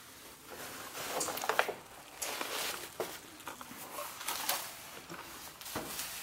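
Crinkly paper gift wrapping being handled around a package, rustling and crackling on and off.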